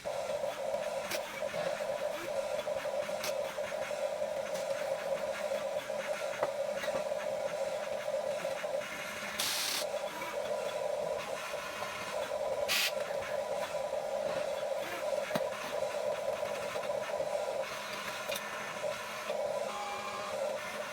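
Small electric motors and gears of a Huina 1550 RC excavator whining steadily as it works. There are a few light clicks and two short bursts of scraping noise about midway.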